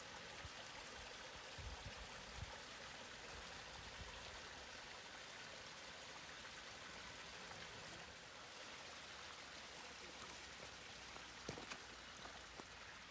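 Small woodland stream running faintly over rocks, a steady even rush of water, with a few light clicks near the end.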